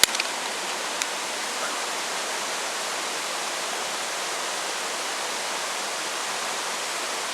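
Steady rushing of water, with one faint click about a second in.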